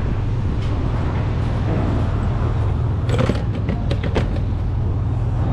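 A gas-pump fuel nozzle is taken from a motorcycle's tank and hung back in the pump's holster, giving a quick clatter of metal and plastic clicks about three seconds in and one more click about a second later. Under it runs a steady low engine hum.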